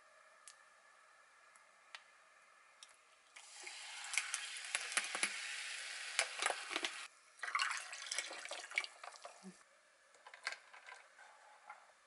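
Drink poured over ice cubes in a glass mug: a steady pour with the ice crackling and clinking that cuts off suddenly about seven seconds in, then a shorter second spell of pouring with ice clinks, and a few light clinks near the end.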